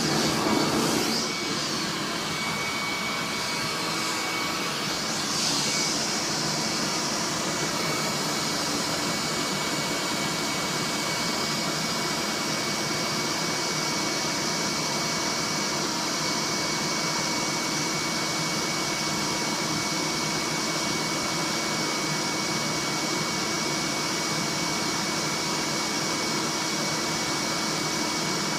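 Vacuum cleaner running steadily, a loud even rush with a thin high whine, its sound shifting a little in the first few seconds before settling.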